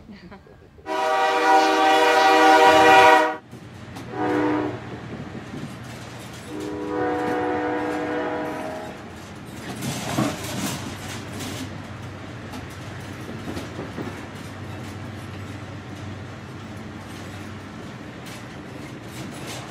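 Train horn blowing three times, heard from inside a passenger carriage: a loud blast of about two seconds, a short blast, then a softer blast of about two seconds. After that comes the steady rumble of the train running, with faint wheel clicks on the rails.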